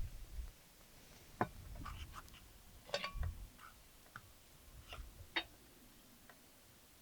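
Scattered light clicks and taps, a dozen or so at uneven spacing, with a few soft low bumps.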